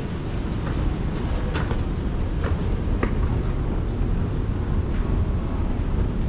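Running escalator: a steady low rumble with a few light clicks.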